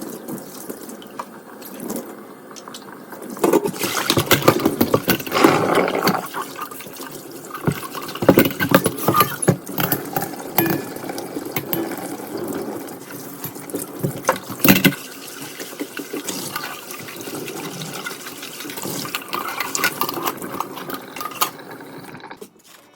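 Water running from a kitchen tap into the sink, louder from about three seconds in, with frequent knocks and clinks of items being handled under it.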